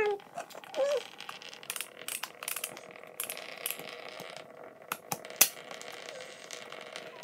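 Hard plastic toy parts rattling and clicking as they are handled and snapped together, with one sharper click about five seconds in, over a faint steady hum.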